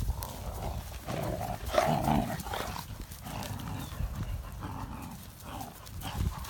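Great Danes, a grown dog and a puppy, tugging a costume in a plastic bag back and forth between them: dog noises mixed with the plastic crinkling and rustling as it is pulled.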